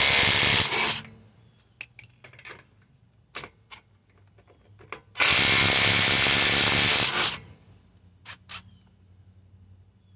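Ridgid subcompact brushless impact wrench (2nd gen R872081) hammering on a car's lug nut through an extension, working to break loose a nut that was run down tight by a mid-torque impact. One run of impacting stops under a second in, a few light metal clicks follow, then a second run of about two seconds starts about five seconds in.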